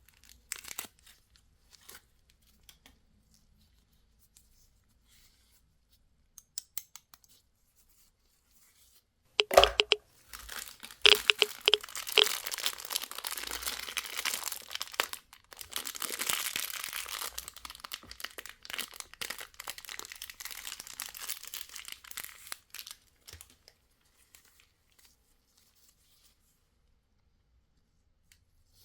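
Candy wrapper being unwrapped close up: a few faint crinkles, then a loud sharp crackle and a long stretch of dense tearing and crinkling, which dies away well before the end.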